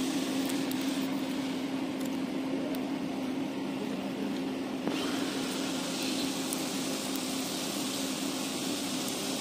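A steady low mechanical hum over a hiss, with a few faint ticks such as a wood fire crackling under a cooking pot. The hiss grows brighter about five seconds in.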